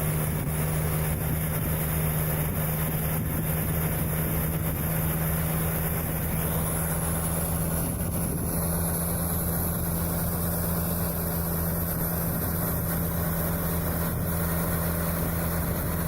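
A motor vehicle's engine running steadily at one speed, with a strong low hum and a hiss over it.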